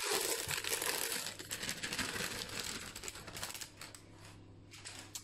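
Cake-mix packet crinkling as dry cake mix is poured out into a stainless steel mixing bowl; the rustle dies away after about three and a half seconds.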